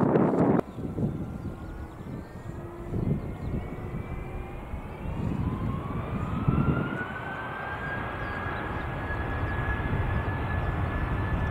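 A brief loud rush cuts off after about half a second, then a Turkish Airlines Airbus A330-200's jet engines rumble with a whine that climbs in pitch over a few seconds and then holds steady, as the engines spool up to takeoff power on the takeoff roll.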